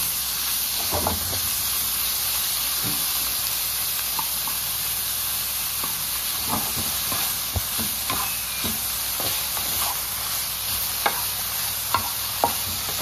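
Strips of bologna sizzling steadily as they brown in a cast-iron skillet, with a wooden spatula scraping and knocking against the pan as it stirs them, a few sharper knocks near the end.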